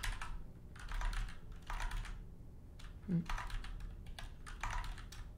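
Typing on a computer keyboard: several short bursts of keystrokes with pauses between them.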